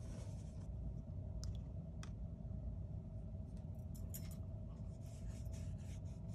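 Faint swishing of a wet watercolor brush stroking across paper, over a steady low hum, with a few light clicks.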